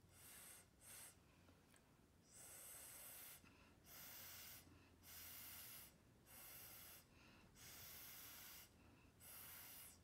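Faint puffs of breath blown through a plastic drinking straw to push wet acrylic pour paint across a canvas: about eight soft hissing puffs, roughly one a second.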